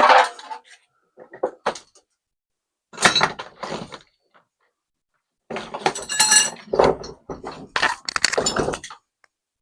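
Hard objects clattering and knocking as tools and parts are handled and set down on a workbench. A sharp clatter comes right at the start, more clunks follow a few seconds in, and a longer busy run of clattering with a brief metallic ring comes near the end.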